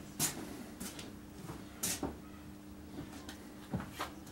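Footsteps on a workshop floor and a few light, separate knocks and clicks as a small metal part is picked up from the bench, over a faint steady hum.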